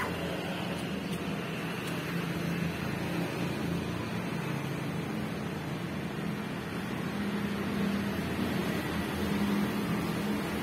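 Street traffic: a steady engine hum with road and tyre noise, without breaks or sudden sounds.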